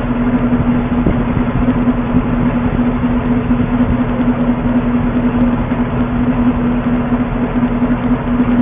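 Tracked armoured vehicle's diesel engine idling: a steady drone with a constant hum.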